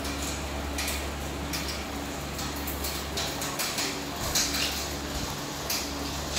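Eating sounds at a table: a few short clinks and scrapes of chopsticks and a spoon against china bowls, over a steady low hum of the room.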